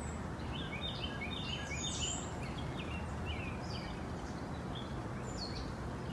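Small birds chirping in short, repeated high calls over a steady background hiss of outdoor ambience, like morning birdsong heard through a window.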